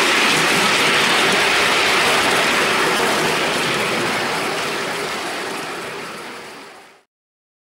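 A four-cylinder 5-inch gauge Coronation Class live steam locomotive running along its track, heard from on board as a steady, fast rushing and clattering. It fades away over the last couple of seconds and then cuts to silence.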